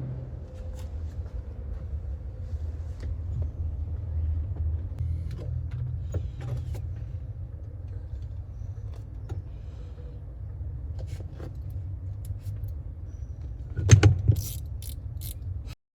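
Light clicks and taps from throttle-cable hardware being handled, over a steady low rumble. Near the end there is a loud knock followed by a few quick metallic jingles, like loose small hardware or keys, and then the sound cuts off abruptly.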